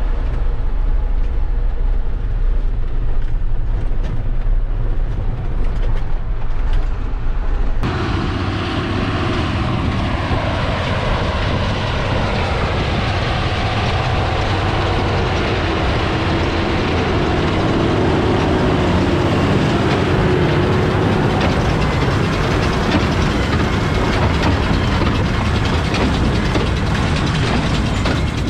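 Steady low tractor-engine drone heard from inside a cab. About eight seconds in it switches to the Claas 630 tractor and Massey Ferguson 185 big square baler working in straw, a louder, denser mechanical clatter.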